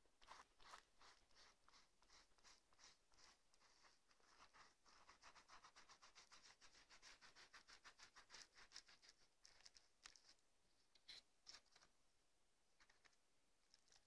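Faint, rapid rubbing strokes of fingers smoothing wet plaster cloth over a foam riser, quickening in the middle, with a few scattered clicks near the end.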